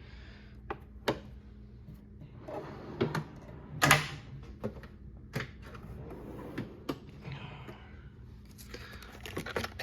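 Metal hand tools clinking and knocking as they are handled in a tool cart drawer: scattered sharp clicks, the loudest about four seconds in, with a quick run of them near the end.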